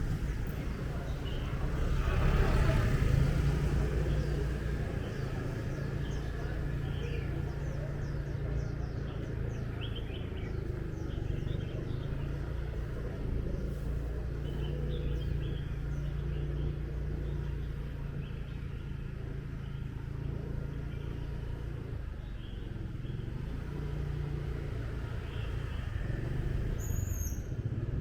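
Motorbike riding along: a steady low engine and road rumble that swells briefly about two seconds in, with faint high chirps here and there and a short high squeak near the end.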